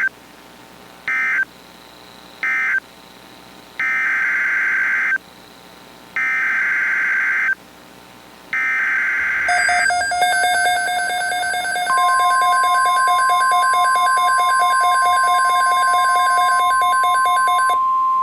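Emergency Alert System SAME data bursts, a warbling digital screech. Three short bursts come first, then three longer ones, each about a second apart. They are followed by a buzzy alert tone, and about 12 seconds in a steady single-pitch weather-radio alert tone joins in and holds.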